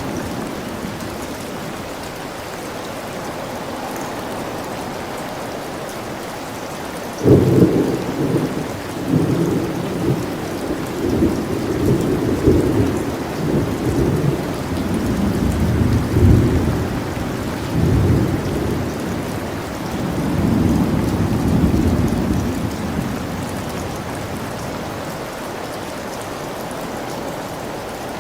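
Steady rain with a thunderclap that breaks suddenly about a quarter of the way in and rolls on in waves of low rumbling for about fifteen seconds before dying back to the rain.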